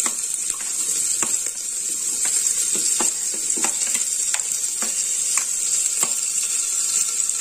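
Chopped onions sizzling steadily in hot ghee in an aluminium pressure cooker, with light clicks now and then as a spoon scrapes the onions off the chopping board and against the pot.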